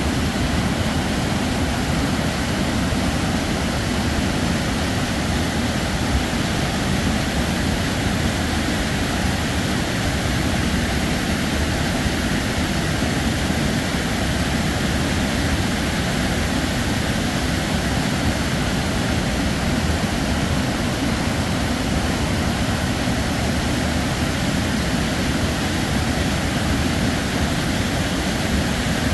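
Heavy waterfall: a steady rush of falling water with a deep, unbroken low rumble.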